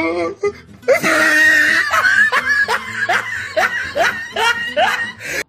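Loud human laughter: a sustained laugh from about a second in, breaking into a run of rhythmic 'ha' pulses about two or three a second, then cut off abruptly at the end.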